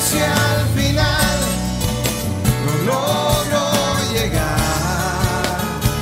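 Background music: a song with a steady beat, sustained bass and a gliding melody line.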